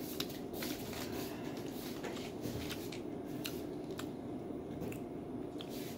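Chewing of a packaged snack and light crinkling of its plastic wrapper: scattered small clicks and crackles over a steady low hum.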